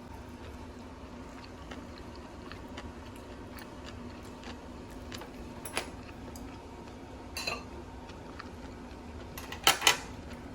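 Light clicks and clinks of small hard objects being handled, ending in two sharp clinks close together near the end, over a steady low hum.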